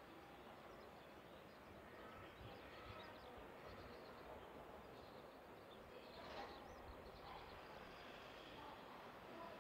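Near silence: faint outdoor ambience with a few faint bird chirps, the clearest about six seconds in.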